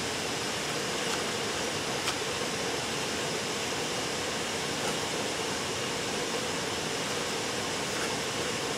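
Steady, even room noise: a hiss with a faint hum underneath, and one faint tick about two seconds in.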